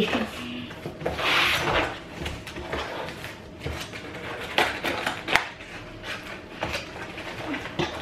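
Cardboard shipping box of a YouTube Silver Play Button being cut open and handled: a scraping, tearing noise about a second in, then scattered knocks and rustles as the box is lifted and tipped on the table.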